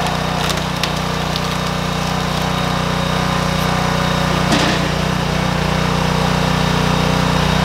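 Briggs & Stratton 6.5 HP single-cylinder engine running steadily on a hydraulic log splitter as the ram forces an oak log onto the wedge. The wood gives several sharp cracks as it splits, the loudest about four and a half seconds in.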